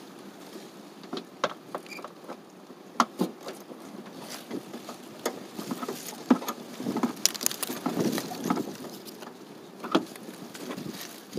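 Irregular clicks, light knocks and scraping from hand work with tools or parts close to the microphone, busiest in the middle.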